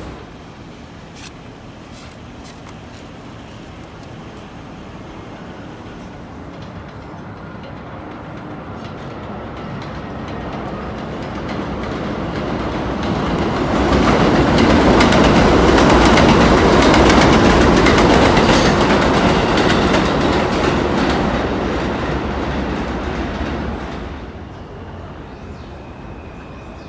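A New York City subway train passing through the station, its wheels running on the rails. It grows louder over about fourteen seconds, stays loudest for several seconds, then fades away.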